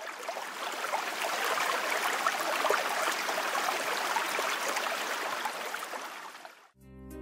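Running water of a stream, a steady babbling rush that fades in at the start and stops shortly before the end, where music begins.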